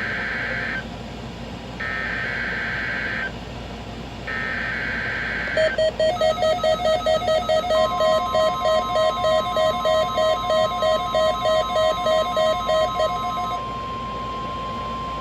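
NOAA Weather Radio Emergency Alert System tones for a required weekly test. Three SAME header data bursts of harsh digital screeching, each about a second and a half long, with the first already under way, are followed by a buzzy electronic beep pulsing about three times a second. About eight seconds in, the steady high 1050 Hz weather alarm tone starts and keeps sounding.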